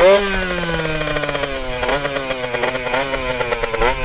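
Kawasaki 60 cc two-stroke motocross bike engine running and being revved in short blips, each rising sharply and then sagging back, several times; very loud. It runs only on sprayed-in starter fluid, and the owner believes the fuel lines and carburettor are clogged.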